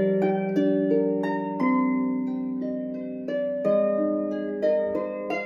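Sonnet harp played solo in a slow improvisation. Plucked notes start about every half second, each left ringing over a low bass note that sustains underneath.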